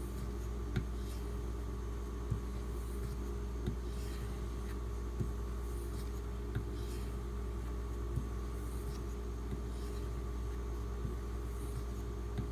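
Knife blade stroked back and forth on a leather strop at the final stropping stage, with fine paste, the soft scraping punctuated by a faint tick about every second and a half. A steady low hum runs underneath.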